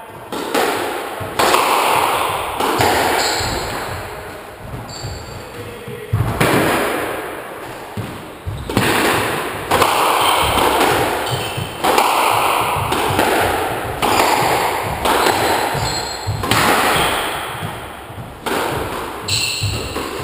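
Squash rally: the ball cracking off rackets and court walls every second or two, each hit ringing out in the enclosed court. Short high squeaks of shoes on the wooden floor come between the hits.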